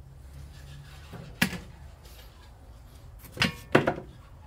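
Metal engine parts and tools being handled on the bench: a sharp clack about a second and a half in, then two louder clanks with a brief metallic ring near the end, over a low steady hum.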